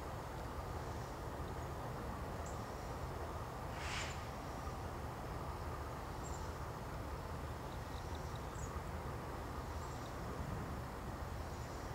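Outdoor ambience by the tracks: a steady low background rumble with faint, high chirps now and then, and one short hiss about four seconds in. No train is heard.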